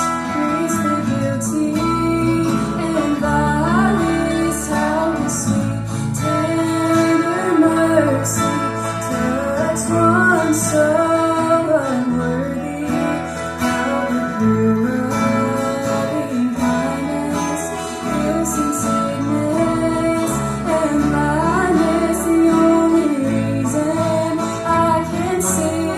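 Gospel singing group performing a song with guitar accompaniment, a woman's voice among the singers.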